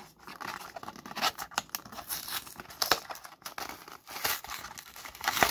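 Packaging of a trading-card mystery pack being torn open by hand: irregular crinkling and ripping, with the sharpest rip near the end.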